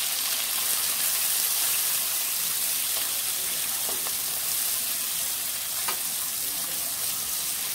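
Shallots, garlic and tomato pieces sizzling in hot oil in a clay pot as a spatula stirs them, with a steady hiss and a few light clicks of the spatula.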